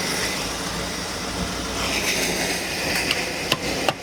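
Chevy 454 big-block V8 idling steadily, with a few sharp clicks near the end.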